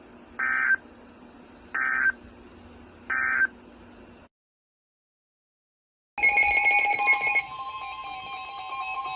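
Three short bursts of Emergency Alert System end-of-message data, about a second and a half apart, over a steady phone-line hum. They are followed by about two seconds of dead silence. Then a new alert starts with a harsh, distorted electronic two-tone attention signal.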